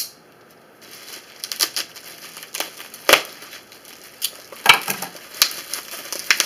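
Plastic bubble wrap being pulled and unwrapped by hand: irregular crinkling and crackling, with a few sharp snaps.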